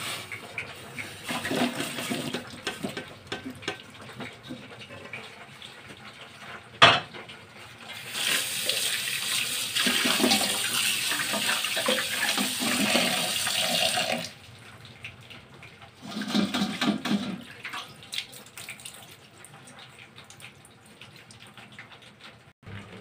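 Tap water running onto broccoli and carrots in a stainless wire-mesh strainer over a metal basin, a steady splashing for about six seconds in the middle. Before it, the vegetables are tipped from a steel pan into the strainer, and a single sharp clank comes about seven seconds in.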